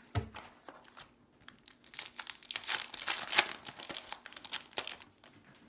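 Foil wrapper of a baseball card pack crinkling and tearing as it is opened, densest and loudest around the middle, with small rustles and clicks of handling around it.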